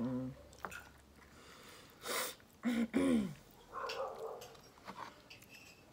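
Mouth and breath sounds of a person eating spicy food by hand: a sharp sniff about two seconds in, two short hums falling in pitch just after, and soft wet chewing and lip-smacking.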